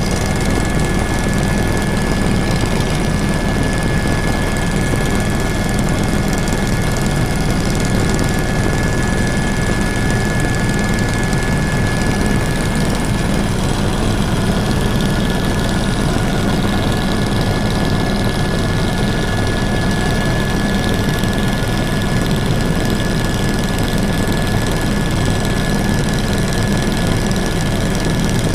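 Helicopter running steadily in flight: a constant loud engine and rotor noise with a steady high whine over it.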